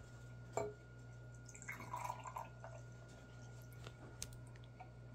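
A sports drink poured from a bottle into a small glass, quietly splashing and gurgling, with a light knock about half a second in.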